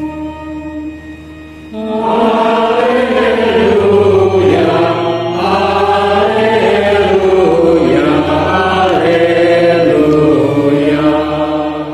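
Congregation singing a chant-like hymn in unison, over steady low bass notes. A single held note opens it, the full singing comes in about two seconds in, and it fades out at the very end.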